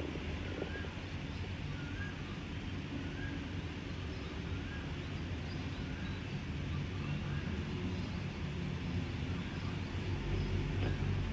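Outdoor ambience: a steady low rumble, like a motor or distant traffic, with faint small chirps repeating about every half second over it.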